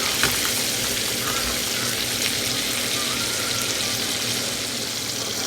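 Steak frying in a skillet: a steady sizzle.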